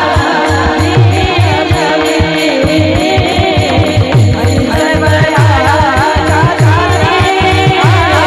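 Women singing a Marathi devotional kirtan melody over a steady harmonium drone. A drum beats about twice a second, with jingling percussion keeping time.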